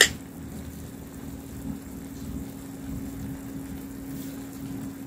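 Steady low mechanical hum with a constant tone, typical of a kitchen appliance running, with one sharp click right at the start.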